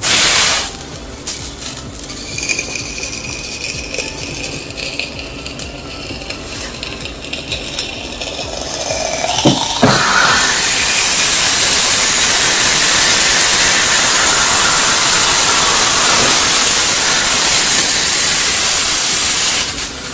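Red-hot steel kitchen knife pressed into a plastic cola bottle: a burst of sizzle as the glowing blade meets the cap, then crackling and hissing as it melts the plastic. From about ten seconds in there is a loud, steady hiss as the blade cuts into the bottle and the cola meets the hot steel. The hiss cuts off suddenly near the end.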